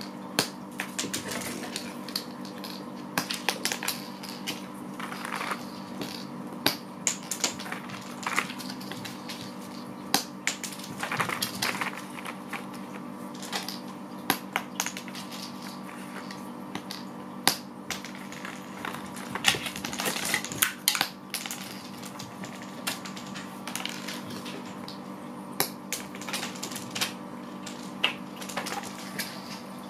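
Small hard balance-game pieces clicking and clattering as they are handled and set down, in irregular single knocks and quick rattling clusters, over a steady hum.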